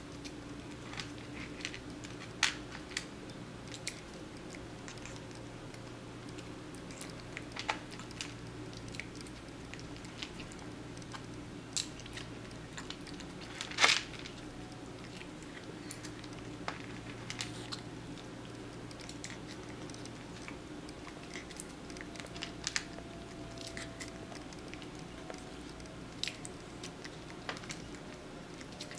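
A cat chewing and crunching dry kibble fed to it on chopsticks, with scattered sharp clicks as the chopsticks pick food from a plastic bowl; the loudest click comes about halfway through. A steady low hum underneath.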